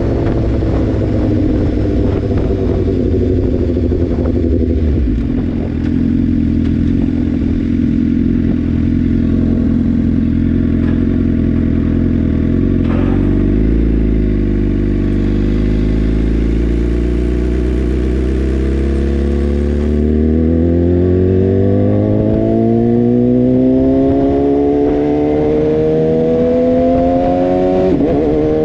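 Engine of a 2018 BMW S1000R inline-four with a full Akrapovic exhaust, heard from the rider's seat. Its revs fall over the first few seconds as the bike slows and stay low and steady through the middle. Then they rise smoothly and steadily under acceleration, with a brief drop near the end at a gear change.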